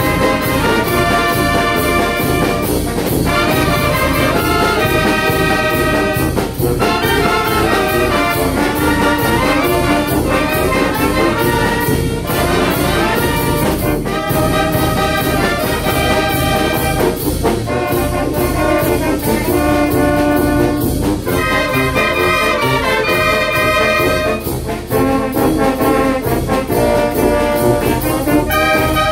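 Oaxacan village brass band playing a melody in phrases, the trumpets and trombones over a steady percussion beat.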